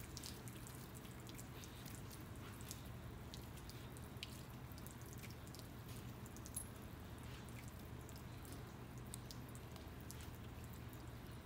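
Faint steady low hum with scattered light clicks and ticks.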